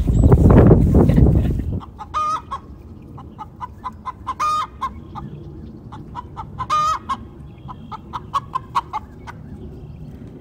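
Chickens clucking: many short, repeated clucks, with three louder, drawn-out calls about two seconds apart. A loud low rumble on the microphone covers the first couple of seconds.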